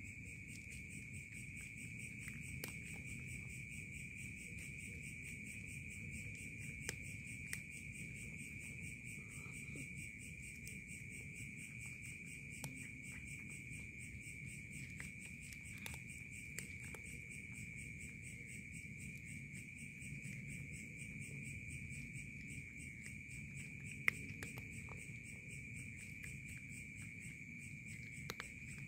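Steady, high-pitched chorus of night insects, with faint scattered clicks from a cat crunching dry kibble and one sharper tick about 24 seconds in.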